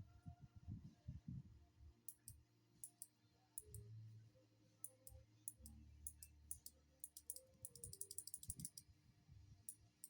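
Kailh Box Jade clicky keyboard switches on an On Gamen Titan Pro keyboard being pressed. Sharp, crisp clicks come singly at first, starting about two seconds in, then in a quick run of rapid presses later on.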